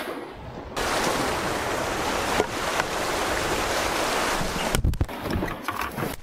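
Rushing white water of river rapids around a canoe, a dense steady roar that gets louder about a second in. Near the end come a few heavy low knocks and splashes as the boat pitches in the rapids.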